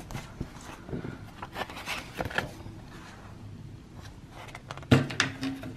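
Paper leaflet being handled and turned over, a run of short crisp rustles and crinkles, with one louder knock about five seconds in.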